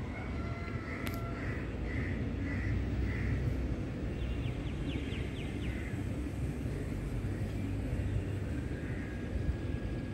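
Outdoor ambience: a steady low background rumble with a few bird calls over it. There is a run of four soft calls early on and a quick burst of short high chirps in the middle.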